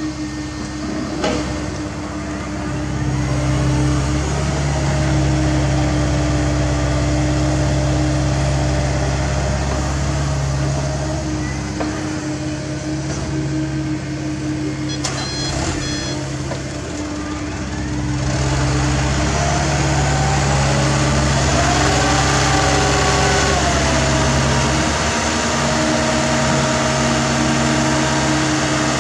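Diesel engines of a CAT 305.5E2 mini excavator and a dump truck running steadily, with a few short high beeps about halfway through. From about two-thirds in the sound grows louder and fuller, with a rising and falling whine, as the truck's bed is tipped up to dump its load.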